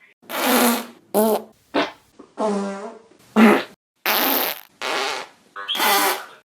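A run of about eight short farts in quick succession, each a brief pitched blast lasting under a second, starting and stopping abruptly with silence between them.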